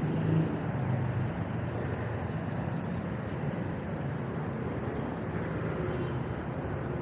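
City street traffic noise: vehicle engines running with a steady low hum, over a continuous wash of road noise.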